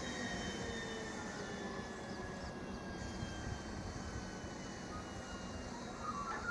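Pilatus PC-12's turboprop engine running at taxi power: a steady whine made of several high tones that slowly drift down in pitch, over a broad rushing noise from the propeller.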